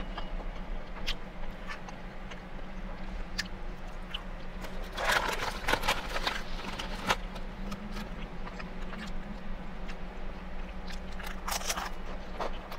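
Eating sounds: chewing, small clicks of a metal fork on a plate, and louder rustles of a chip bag about five seconds in and again near the end, over a steady low hum.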